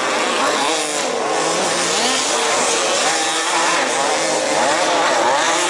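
Several 1/5-scale off-road RC race cars' small two-stroke petrol engines revving up and down as they race, several pitches rising and falling over one another.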